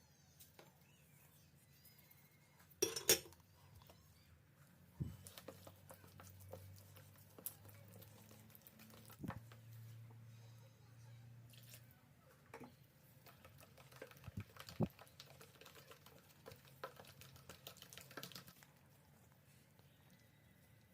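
Kitchen dishes and utensils clinking and knocking during food preparation, with the loudest clatter about three seconds in. A faint low hum runs through the middle.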